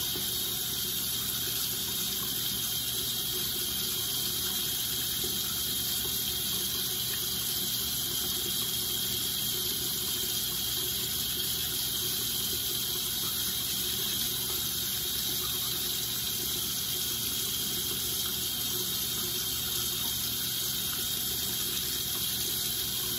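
Water running steadily from a bathroom sink tap, an even rushing hiss that does not change.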